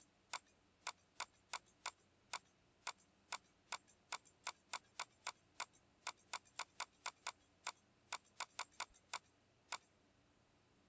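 Computer mouse clicking over and over, about three clicks a second in an uneven run that stops near the end: a debugger's Step Into button being clicked to step through a program line by line.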